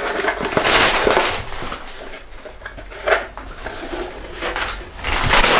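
Rustling and handling noises, in bursts, as a plastic horned Viking helmet is handled and put on someone's head.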